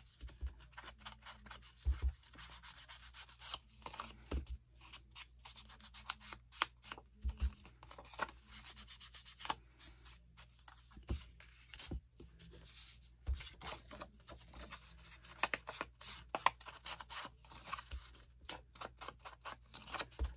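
Ink blending tool being rubbed in quick, irregular strokes along the edges of paper pockets, a soft scratchy brushing on the paper, with a few soft knocks now and then.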